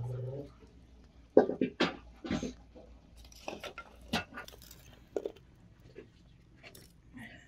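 Light clatter and scattered sharp knocks of kitchen work around a wood-fired bread griddle. The loudest knocks come in a quick run about one and a half to two and a half seconds in, with another near four seconds.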